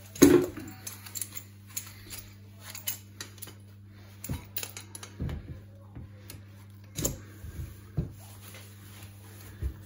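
Steel F-clamps clicking and knocking irregularly as they are slid into place and tightened around a metal tin by gloved hands. The loudest knock comes just after the start.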